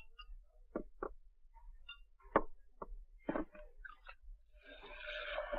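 Bottles and glasses handled at a bar counter: about six sharp knocks and clinks over four seconds, the loudest about halfway through, then a hiss of about a second near the end.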